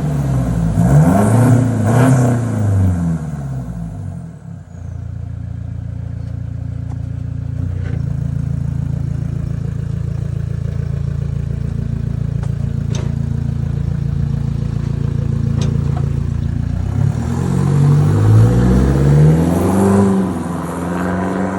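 Toyota Hilux N80's 2.8-litre four-cylinder turbo-diesel heard through a 3-inch turbo-back exhaust with a resonator. It is blipped in a few quick revs, then idles steadily, then is revved up and down again near the end.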